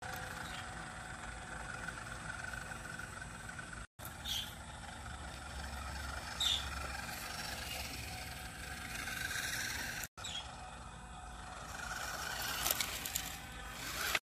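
Small electric motor and gearbox of a WPL RC mini truck whirring steadily as it drives over dirt and grass, with a few short clicks. The sound drops out briefly twice.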